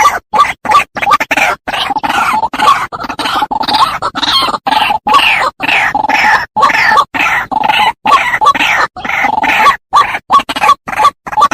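White-breasted waterhen calling: short notes in a rapid, uneven run with brief gaps between them.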